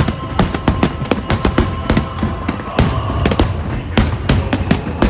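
Fireworks going off in a dense barrage, a rapid run of sharp bangs and crackles several times a second, with music underneath.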